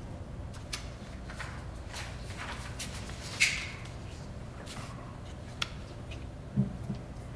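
Pens scratching on paper and papers being handled at a table, a string of small scratches and clicks over a steady room hum, with a sharp scrape about three and a half seconds in and a low knock on the table near the end.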